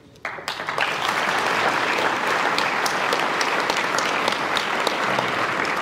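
Audience applauding: the clapping starts suddenly about a quarter second in and keeps up at an even level.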